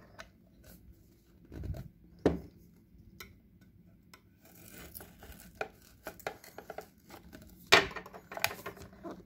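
Kitchen knife scraping and prying at a clear hard-plastic display box, with scattered clicks and taps of the plastic being handled. There are two sharp knocks, one about two seconds in and a louder one near the end.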